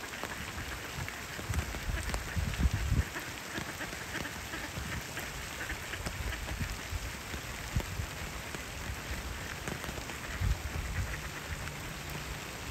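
Rain falling on a pond's surface, a steady patter of many small drops. Low rumbles come and go, and a faint low hum sets in near the end.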